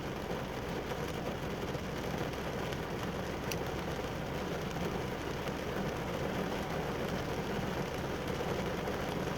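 Steady rain falling, a constant even patter with one sharp tick about three and a half seconds in.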